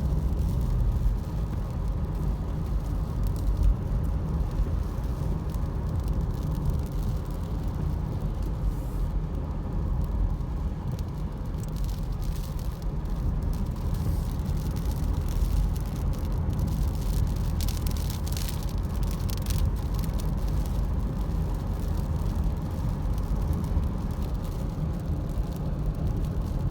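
Steady low rumble of a car's engine and tyres, heard from inside the cabin while driving. A few brief clicks come a little past the middle.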